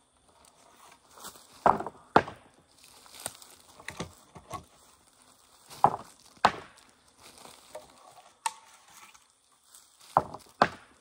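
Sharp knocks in three pairs, the two knocks of each pair about half a second apart: one pair about two seconds in, one near the middle, one near the end. A lighter knock falls between the last two pairs, and faint scraping and rustling run in between; no chainsaw is running.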